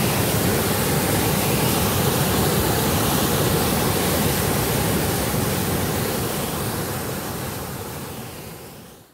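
Water gushing and splashing down a concrete channel in a steady, loud rush. It fades away over the last few seconds.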